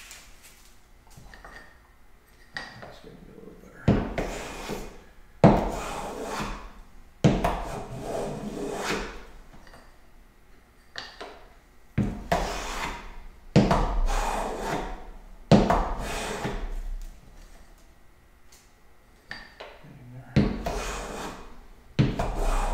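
Hand plane (a No. 4½ smoothing plane) taking shavings off a thin board: about nine push strokes, each a sharp-starting swish about a second long, in runs of two or three with short pauses between, as the board is planed down to even thickness.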